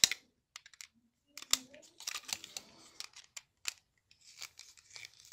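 Screwdriver working the terminal screws of a plastic push-button station, with scattered small clicks and short scraping noises as a wire is fitted under a screw.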